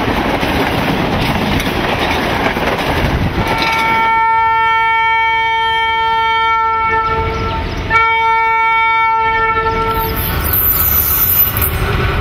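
Indian Railways train running past close by with a loud rumble and clatter of wheels on the track. A few seconds in, a train horn sounds two long, steady blasts, the first about four seconds and the second about two, before the running noise takes over again.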